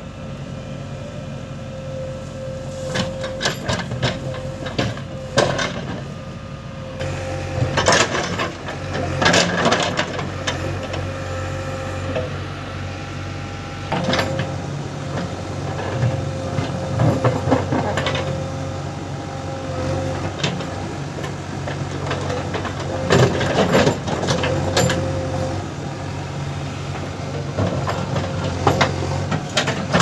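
JCB 3DX backhoe loader's diesel engine running steadily while the backhoe bucket digs into soil, with repeated knocks and scrapes from the bucket and its linkage scattered through.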